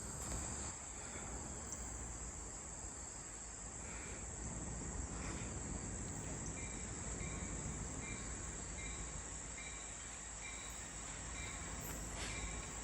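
Insects chirring in a steady high-pitched trill over a faint low rumble. About halfway through, short chirps join in, repeating about every two-thirds of a second.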